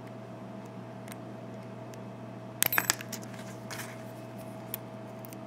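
Metal lock-picking tools clinking against an American 5200 series padlock: a quick cluster of sharp metallic clicks a little past halfway through, then a faint scrape and a single light click.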